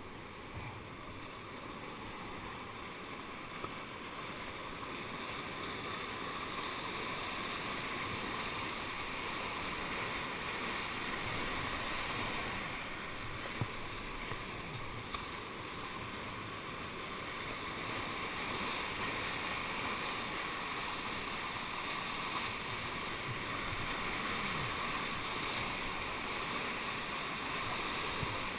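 Whitewater rushing and churning around a kayak surfing a river hole, a steady roar that builds slowly. A few brief knocks stand out over it.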